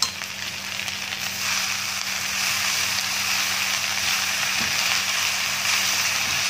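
Diced potatoes and onions sizzling in oil in a steel kadhai as fresh fenugreek leaves are stirred in. The sizzle grows louder a little over a second in, as the leaves are turned down into the hot pan, after a sharp click at the very start.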